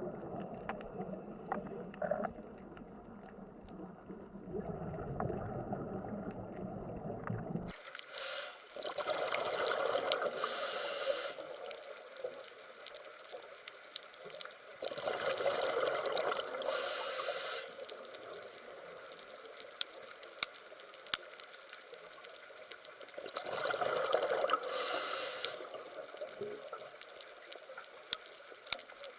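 Water sounds: a steady low rush that changes abruptly about eight seconds in, followed by bubbling swells roughly every seven seconds, each lasting a couple of seconds.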